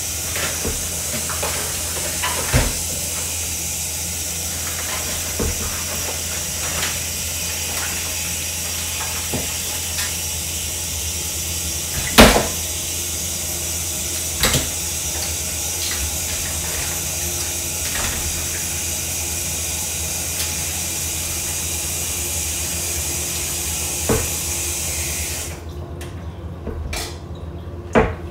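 Kitchen tap running into a stainless steel sink as raw chicken backs are rinsed under the stream, with a few sharp knocks, the loudest about halfway. The water shuts off suddenly near the end.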